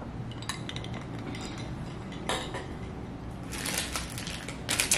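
Ice cubes clinking faintly in a lidded glass drinking jar, then a crinkling rustle from about three and a half seconds in.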